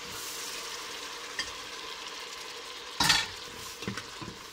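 Freshly added tomato sizzling in hot oil with onion and garlic in a stainless steel pot on a strong burner, stirred with a wooden spoon. A sharp, louder burst comes about three seconds in.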